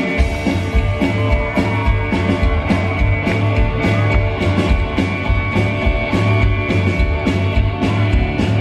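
Rockabilly trio playing live through a concert PA: electric guitar over upright double bass and drums, with bass and drums keeping a steady driving beat.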